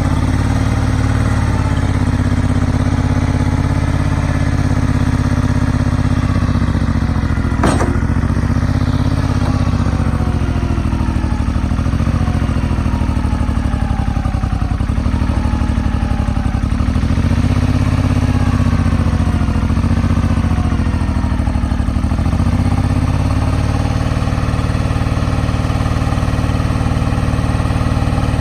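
Kubota L39 tractor-loader-backhoe's diesel engine running, its pitch dipping and recovering several times partway through as if loaded, with a single sharp click about eight seconds in.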